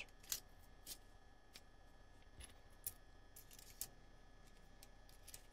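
A handful of faint, scattered clicks and small knocks, close to silence, as a T12 soldering tip cartridge is pushed and seated into its soldering iron handle.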